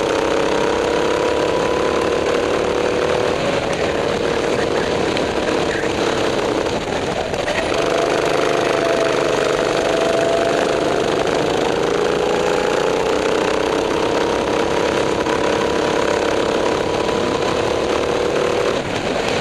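Go-kart engine running hard on track, its pitch sagging and climbing again as the kart slows and speeds up through the corners, with dips about seven seconds in and near the end.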